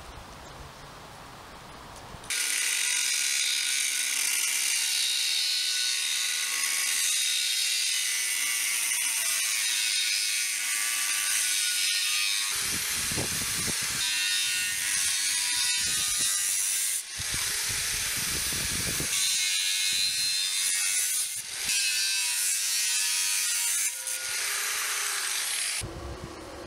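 Angle grinder with an abrasive cut-off disc cutting through square steel profile pipe: a loud, hissing screech of the disc in the steel that starts about two seconds in, with the motor's pitch shifting under load and a few abrupt breaks.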